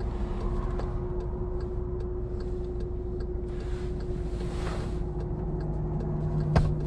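Car cabin sound of a stopped Volkswagen Tiguan: a low steady rumble and hum, with a light ticking about three times a second. Rustling as the rear middle seat-back is reached for, and a single sharp click near the end as it is pulled down to show its cup holders.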